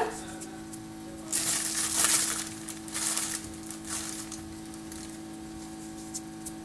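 Ground mixed spice being shaken from a shaker onto sliced onions: a few short, dry hissing shakes. The longest comes about a second and a half in, with fainter ones around three and four seconds.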